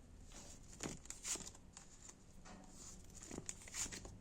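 Faint rustling and soft brushing of tarot cards being handled and laid out, in several short strokes.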